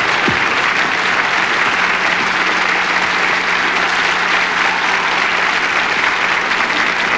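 Large theatre audience applauding steadily. A low steady hum runs underneath from about a second in.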